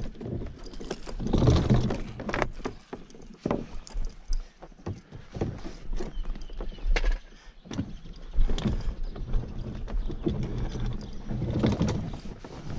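Irregular knocks, clatter and scraping as a plastic fishing kayak and its wheeled kayak trolley are handled on a concrete boat ramp.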